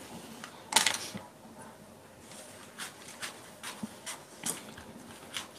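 Large sheet of pattern paper being handled and folded: a sharp paper rustle about a second in, then faint scattered crinkles and light taps.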